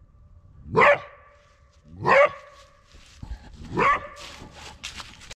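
A trapped coyote barking three times, a second or so apart, each a short, harsh bark with a lingering ring. Softer scuffing and clicks follow in the last second or so.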